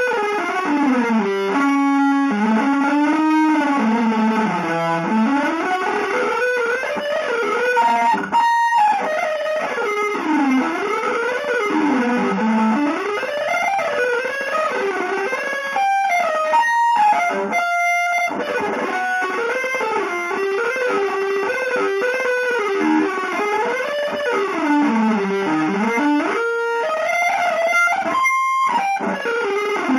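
Electric guitar playing a free, tuneless improvisation in long sliding pitch glides that sweep up and down, with a few short breaks in the middle and near the end.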